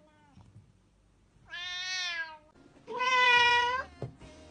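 A cat meowing twice: a meow that rises and falls in pitch about one and a half seconds in, then a louder, flatter meow of about a second.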